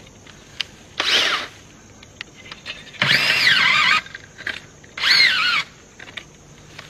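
Makita twin-battery cordless earth auger drilling into packed dirt in three short bursts, its motor whine rising and dropping in pitch in each one. It is running on nearly flat batteries.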